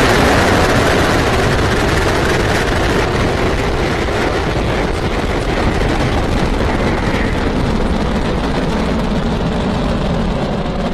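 Falcon 9 first stage's nine Merlin engines firing at liftoff: a loud, crackling rush of rocket exhaust noise that gradually fades and loses its hiss as the rocket climbs away.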